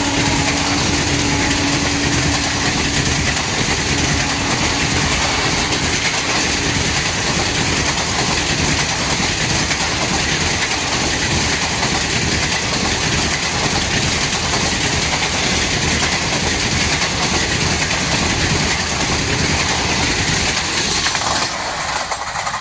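Blue passenger coaches of an express train passing at speed: a loud, steady rush and rattle of wheels on the rails. The locomotive's horn trails off faintly in the first few seconds, and the noise drops away suddenly near the end as the last coach goes by.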